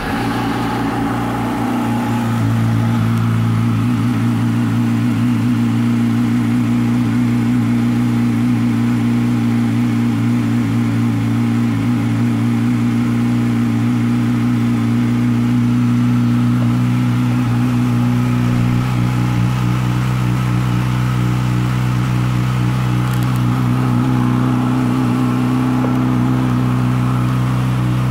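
2012 Yamaha YZF-R6's 600 cc inline-four, fitted with an aftermarket M4 exhaust, idling just after being started. It builds over the first two seconds, then holds a steady idle.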